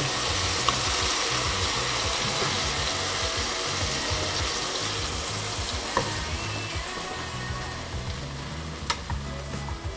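Banana slices frying in a pan, a steady sizzle that slowly grows fainter, with a few light clicks of a fork against the pan as they are turned.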